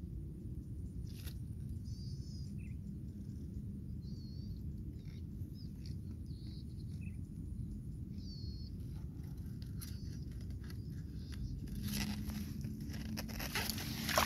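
A few short, high bird chirps over a steady low rumble. Near the end, leaves and grass rustle as the wild eel is pulled up out of its burrow among the water hyacinth, peaking in one sharp rustle.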